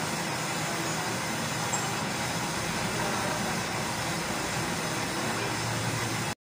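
Metal lathe running steadily, its tool cutting a rotating metal shaft, with a brief break in the sound near the end.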